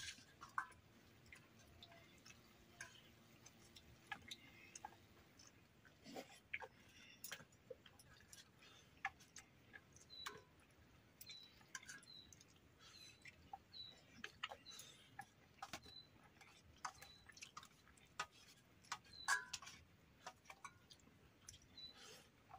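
Two people eating rice by hand from steel plates: faint scattered clicks and scrapes of fingers against the metal, with quiet chewing.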